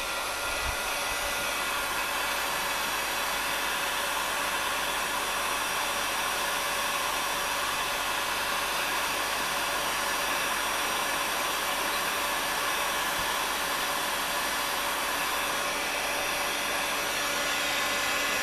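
Electric hot air gun running steadily, a rush of blown air with a faint steady whine, aimed at a lead-acid battery's plastic case to warm it before hot-gluing a repair.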